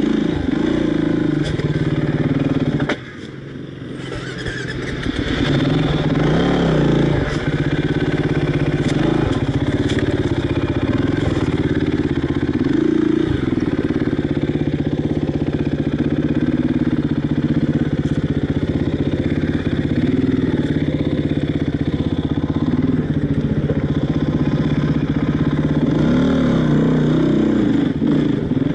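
Enduro dirt bike engine running at low speed over rough ground, its pitch rising and falling with repeated blips of throttle. About three seconds in it drops suddenly and then builds back up over a couple of seconds.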